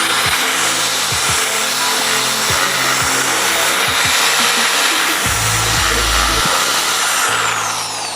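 Handheld power tool widening a drilled hole in a motorcycle's plastic panel: the motor spins up, runs steadily, and spins down near the end. Background music plays underneath.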